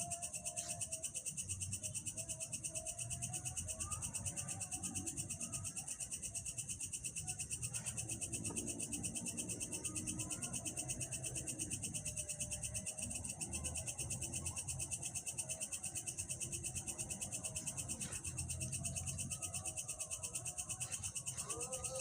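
Steady, fast-pulsing high trill of insects, with scattered bird chirps over it.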